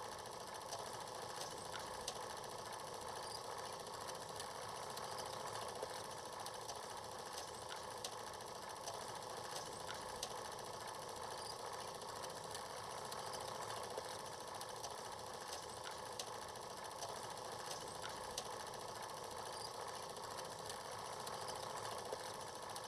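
Steady mechanical whirring with scattered clicks and crackles, the running noise of old film.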